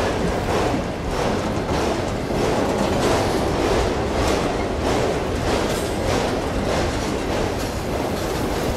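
Freight train of autorack cars rolling past close by: a steady rumble of steel wheels on the rails, with regular clacks roughly twice a second.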